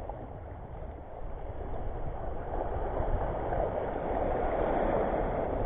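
Small waves washing and splashing over reef rocks at the shoreline, with wind rumbling on the microphone; the surf grows louder from about two seconds in.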